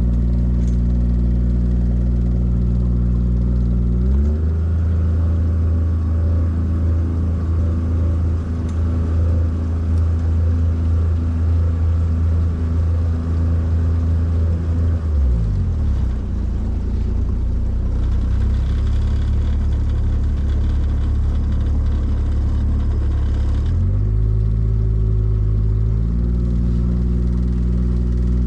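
Boat motor running under way, its note changing with the throttle: it shifts about four seconds in, drops a little past halfway, and climbs again about four seconds before the end.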